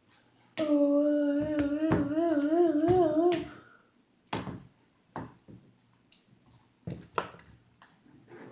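A voice holds one loud sung or hummed note for about three seconds, steady at first and then wavering up and down in pitch. A few light clicks and taps follow.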